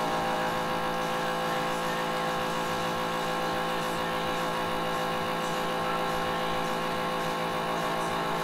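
Countertop vacuum sealer's pump motor running with a steady, even hum, drawing the air out of a bag of meat before it seals.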